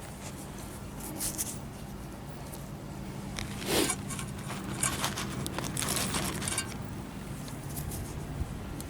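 Rustling, crinkling and scraping handling noises close to the microphone, coming in short scattered bursts over a low steady hum.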